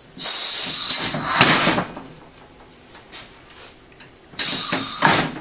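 Pressurised air hissing through the valve and hose of a homemade scissors lift run at about 50 pounds of pressure, as the lift is worked up. It comes in two bursts, the first about a second and a half long at the start, the second shorter near the end, with a lower rumble under the end of the first.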